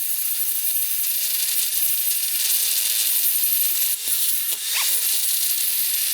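Handheld grinder grinding down a weld bead on steel bar stock: a steady grinding hiss over the motor's hum, with the pitch sagging and recovering briefly about four to five seconds in as the grinding load changes.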